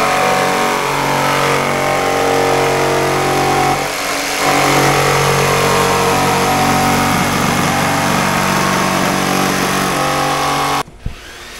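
Electric jigsaw cutting through a black plastic bin, its motor running steadily. The motor dips briefly about four seconds in, then cuts off abruptly near the end.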